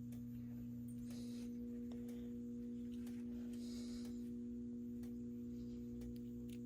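Steady low electrical mains hum with even overtones, with a few faint clicks and two brief soft rustles over it.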